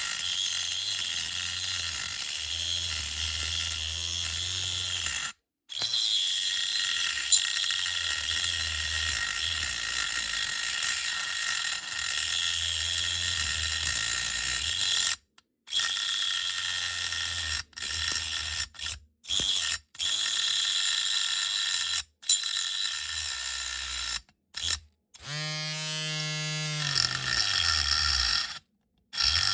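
A small motorised cutting tool whines steadily as it cuts through the metal wing of a diecast toy car body. The sound stops abruptly several times. About 26 seconds in, the motor's pitch falls away as it spins down.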